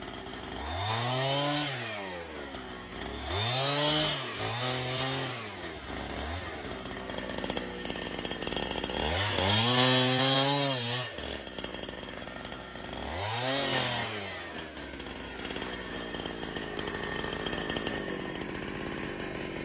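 Chainsaw engine being revved again and again, its pitch rising to a peak and falling back about five times, then running more steadily and quieter over the last few seconds.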